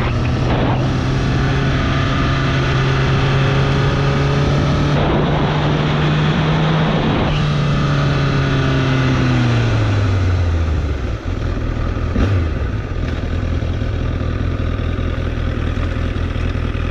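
A motorcycle engine under way, its note rising slowly for about seven seconds, then dropping as the bike slows around eight to eleven seconds in, then running lower and steadier, with wind noise throughout.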